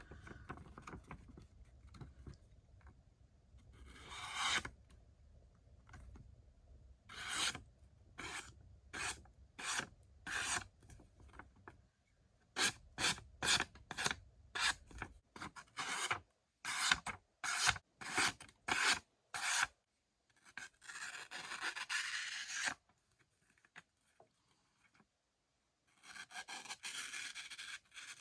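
A knife's S35VN steel blade slicing through paper in a long run of short, quick cuts, then two longer, drawn-out slices near the end. The cuts show a razor-sharp edge.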